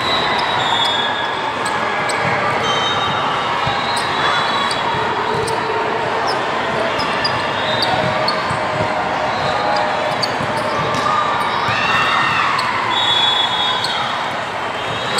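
Indoor volleyball match in a gymnasium: repeated sharp knocks of the ball being hit and bouncing, short squeaks and a steady chatter of voices echoing in the large hall.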